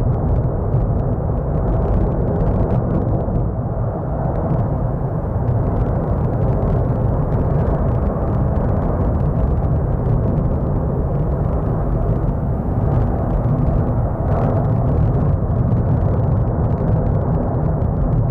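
Steady low rumble of the erupting Cumbre Vieja volcano on La Palma, continuous and without breaks.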